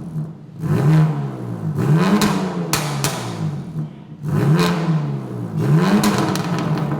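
BMW M3 G80's twin-turbo inline-six revved through an aftermarket custom exhaust in four quick blips, each rising and falling in pitch, with a few sharp crackles as the revs drop after the second blip.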